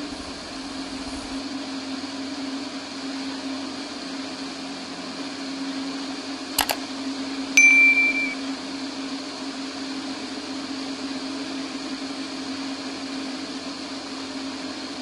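Light aircraft engine drone heard through the cockpit headset intercom: a steady low hum under a hiss. About six and a half seconds in there is a single click, and a second later a short high beep.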